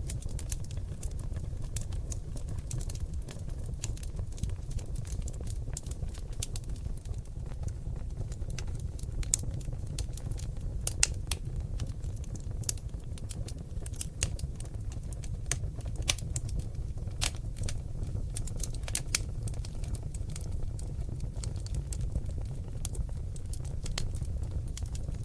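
Seasoned oak logs burning in a fireplace: irregular sharp crackles and pops, several louder snaps among them, over a steady low rumble of the fire.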